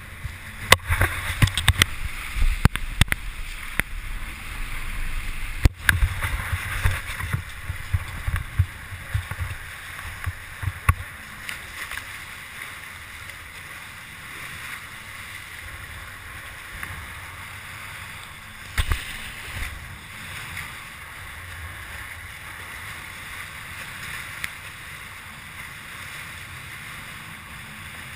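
Water rushing and splashing along a sailing Hobie catamaran's hulls, with wind buffeting the microphone. Choppy for the first dozen seconds, with sharp splashes and knocks, then steadier, with one louder gust about two-thirds of the way through.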